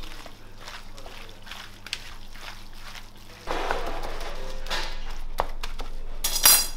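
Gloved hands squishing and kneading raw cubed meat with a wet spice paste in a metal tray, a run of short, wet squelches that get louder about halfway through. Just before the end comes a brief, loud, high-pitched squeak.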